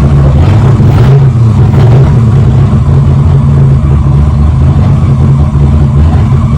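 Cammed LS1 5.7-litre V8 running steadily with a loud, uneven low rumble.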